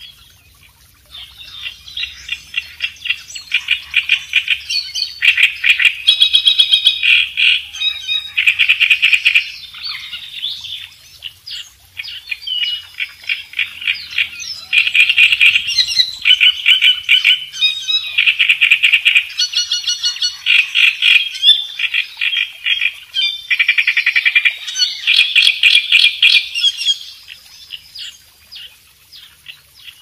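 Large reed warbler (kerak besi) singing its loud, harsh song: phrases of rapidly repeated grating, croaking notes. There is a short break in the middle, and the song stops a few seconds before the end.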